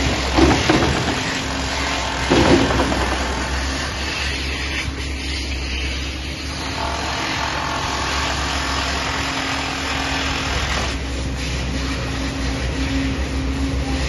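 Diesel engine of construction machinery running steadily over general construction-site noise, with two louder surges about half a second and two and a half seconds in.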